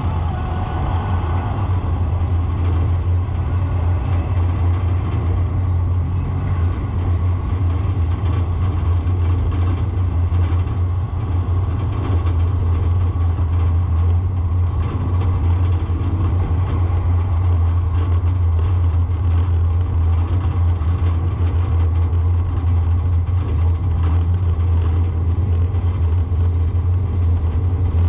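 Steady low rumble of a vehicle travelling through city traffic: engine and road noise with no let-up.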